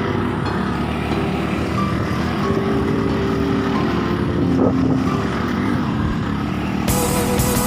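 Vespa motor scooter engine running while riding, its pitch shifting a little. Rock music comes in near the end.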